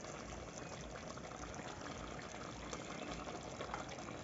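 Chicken in tomato sauce simmering in a pan over a gas flame: a steady low sizzle with faint scattered pops.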